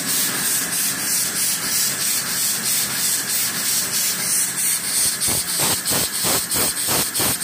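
Homemade steam engine converted from an old well water pump, running steadily: a rapid, even rhythm of hissing exhaust puffs, one with each stroke. About five seconds in the puffs become louder and fuller.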